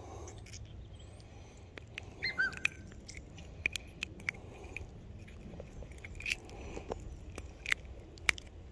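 Close-up handling noise of hands unhooking a small largemouth bass: scattered sharp clicks, ticks and rubbing as the fish's lip and the hook are worked, with a short chirp-like whistle about two seconds in.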